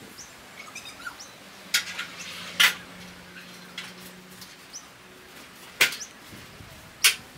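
Four sharp, high clinks spaced irregularly a second or more apart, with a few faint bird chirps in the first second.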